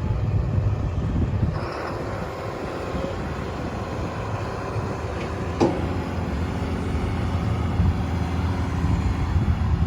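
Caterpillar 329E excavator's diesel engine working under load as the machine digs, with a steady low rumble. About halfway through there is a sharp knock, followed by a steady hum lasting a few seconds.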